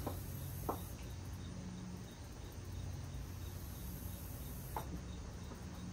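Faint, steady insect chirping with an even, rapid pulse, over a low steady hum, with a few light clicks.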